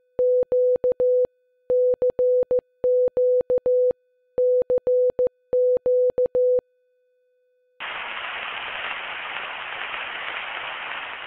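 Morse code sent on a CW key, heard as a single steady-pitched sidetone from the HamSphere 4.0 software transceiver keyed on and off in dots and dashes. The keying stops about six and a half seconds in, and about a second later a steady static hiss comes up.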